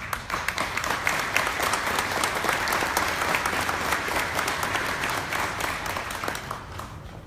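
Audience applauding: many people clapping at once, starting abruptly and tapering off near the end.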